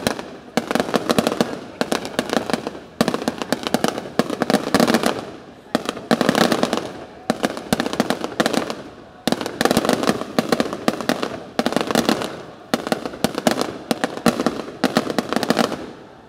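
Fireworks going off in quick volleys, a new cluster of rapid bangs and crackles about every second, each trailing off before the next begins.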